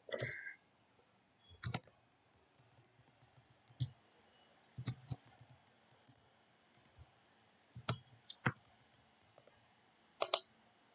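Computer mouse clicking: about eight short, separate clicks spread irregularly, some in quick pairs like double-clicks, in a quiet room.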